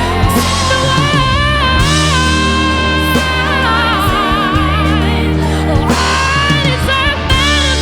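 Rock band playing live, with electric guitars, bass guitar and drums. A held lead melody bends and wavers in pitch over a steady low bass line, with drum hits through it.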